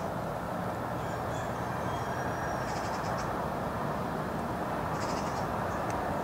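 Steady outdoor wind noise over choppy lake water, with a few faint, short bird calls high above it about a second, three seconds and five seconds in.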